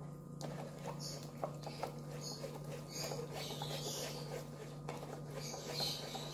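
Fingers pressing and rubbing maida batter through a plastic sieve, making a run of small, irregular wet squishing and scratching sounds as the lumps are worked through the mesh.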